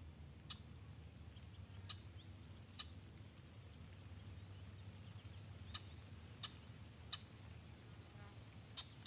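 Small birds calling outdoors: about seven short sharp chips scattered through, with faint twittering between them for the first few seconds, over a low background rumble.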